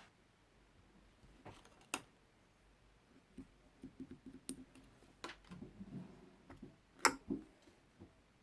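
Slime being squeezed and pressed by hand: soft squelches with scattered sharp little pops, the loudest about seven seconds in.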